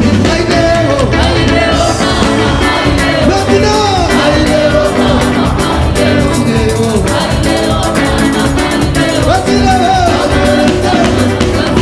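Live band music with a singer over a steady, pulsing drum-and-bass beat.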